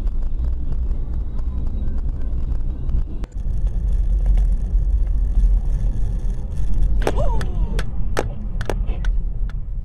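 Steady low engine and road rumble of a car driving on a snowy road, picked up inside the cabin by a dashcam, with a short break about three seconds in. From about seven seconds there is a quick run of six or seven sharp knocks and clicks.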